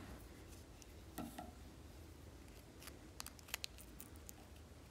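Faint scraping and a scatter of light clicks from a wire stirring watered-down silver-solder flux paste in a plastic tub. The clicks come mostly in the second half.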